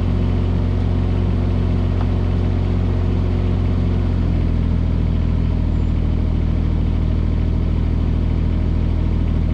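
Kubota U17 mini excavator's three-cylinder diesel engine running steadily, its tone shifting slightly about four seconds in.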